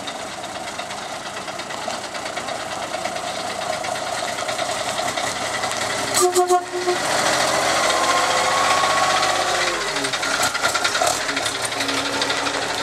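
Classic truck engine running, with a short horn blast about six seconds in, then the engine revving as the truck pulls away.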